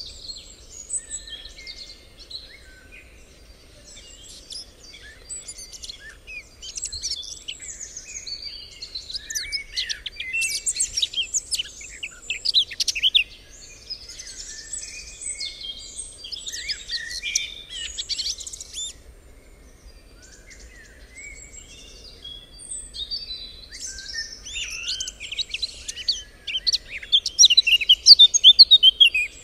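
Songbirds singing and chirping: quick high trills and calls in overlapping waves, loudest near the end.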